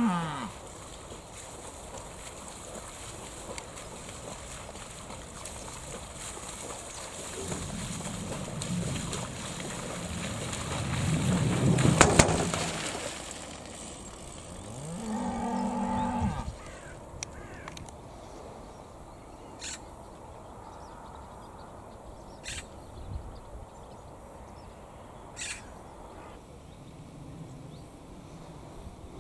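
Cows mooing: a long low moo from about eight to thirteen seconds in, with a sharp knock near its end, then a shorter moo about fifteen seconds in. A few faint short high sounds follow later.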